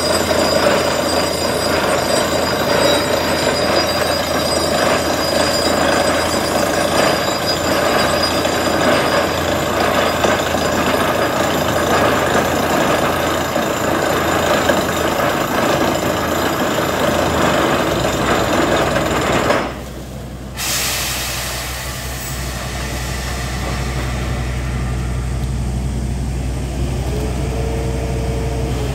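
Borewell drilling rig hammering into the ground: a loud, dense, rapid hammering with machine noise. About two-thirds through the hammering stops abruptly, a short hiss follows, and then the rig's engine runs on with a steady low hum.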